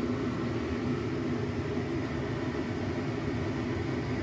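Steady low hum and rumble of a running fan or motor, unchanging, with a faint steady tone in it.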